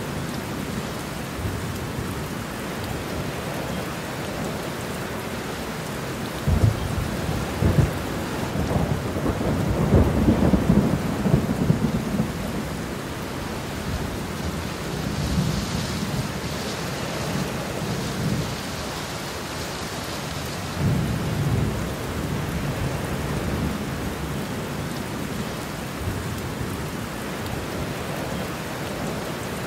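Steady heavy rain with low rumbles of thunder rolling in and out. There are two short rumbles, then the longest and loudest roll about a third of the way through, and another about two-thirds through.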